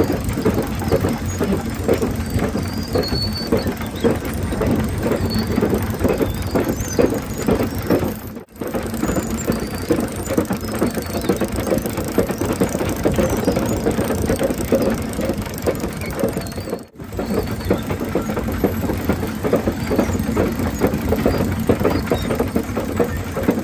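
Holt No. 111 steam traction crawler running under way: a steady mechanical clatter of its steam engine, gearing and drive chain. The sound cuts out briefly twice.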